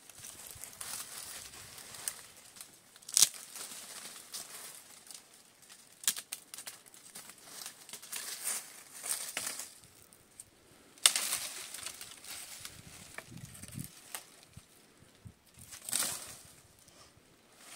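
Tree branches being pulled and snapped off by hand, with several sharp cracks, the loudest a few seconds in and again past the middle, over rustling leaves and twigs. Footsteps crunch through dry leaf litter.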